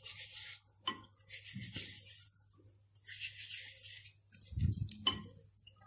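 Gloved hands rubbing flour, semolina, starch and oil together between the fingers in a glass bowl: a soft, gritty rustle in three strokes about a second and a half apart, rubbing the oil into the flour until it is like grains of sand. A dull bump near the end is the loudest sound.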